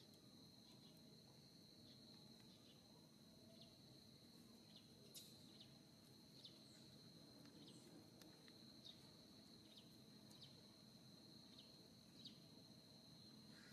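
Near silence: faint outdoor ambience with an insect's steady, high-pitched continuous trill, and faint short ticks every second or so.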